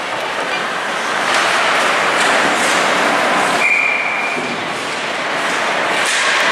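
Ice hockey rink game sound: skates scraping and carving on the ice and sticks clattering in a steady wash of noise. A short, high, steady tone sounds just under 4 s in.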